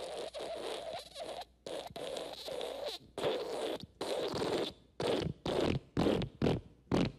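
Fart sound effect: raspy, sputtering bursts, the first few about a second long each, then shorter ones coming faster, about three a second, toward the end.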